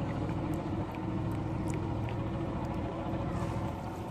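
An engine running steadily with a low hum, with faint drips and ticks as a wet nylon fishing net is hauled over the side of a wooden boat.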